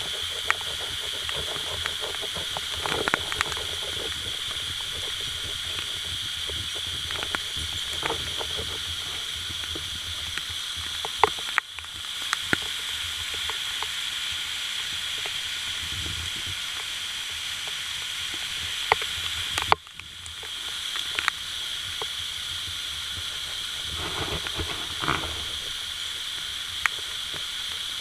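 Steady rushing hiss of water falling at a waterfall, with scattered sharp clicks and knocks over it.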